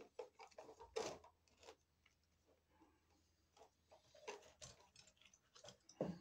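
Faint scattered clicks and rustles of hand tools and electrical cable being handled, the loudest about a second in and near the end.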